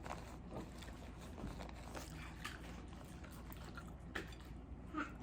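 Quiet chewing and mouth sounds of a person eating spaghetti with meat sauce, with scattered soft clicks.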